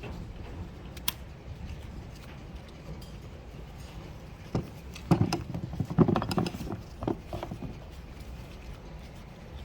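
Hand handling of a seatbelt retractor and its webbing: a single sharp click about a second in, then a cluster of clicks and rattling knocks over a few seconds in the middle.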